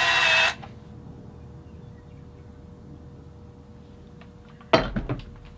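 Cordless drill whirring as it turns a bit in a pressure washer pump's check valve bore, cutting off about half a second in. Then a quiet stretch with a faint steady hum, and a few sharp clicks near the end.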